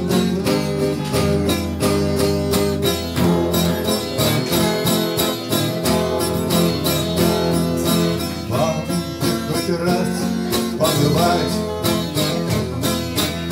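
Acoustic guitars strummed together in a steady rhythm: the instrumental introduction before the song's vocal begins.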